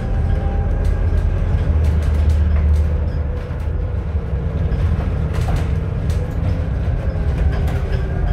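Scania Citywide LF natural-gas city bus under way: a continuous low engine and driveline rumble with a steady faint whine on top. Scattered light rattling clicks come through throughout.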